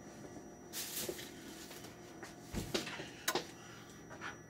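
Soft kitchen handling noises: a brief rustle about a second in, then a few scattered light knocks and clunks of things being moved about.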